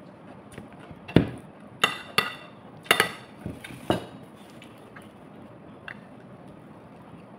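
Metal spoon knocking and clinking against a plate: about six sharp strikes in quick succession over a few seconds, some with a short ring.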